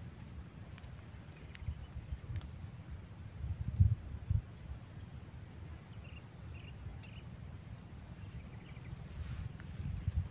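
A small bird calling a long run of short, high chirps that drift slowly lower in pitch and become sparser later on. Underneath is a low rumble, with two louder bumps about four seconds in.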